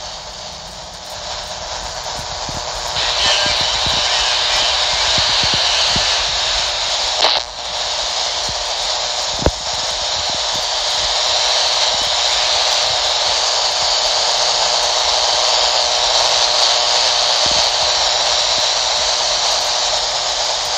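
Static hissing steadily from a Uniden handheld CB radio's speaker with the squelch open between transmissions. The hiss gets louder about three seconds in, and there are a couple of short clicks around seven and nine seconds in.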